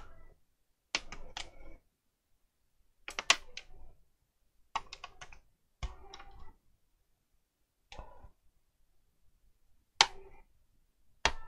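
Sharp plastic clicks and snaps in short clusters, about seven of them, as a tablet's plastic back cover is pried loose and its clips let go.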